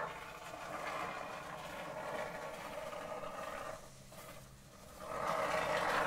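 Can of expanding foam spraying into a gap, a hiss that runs for nearly four seconds, stops for about a second, then starts again near the end.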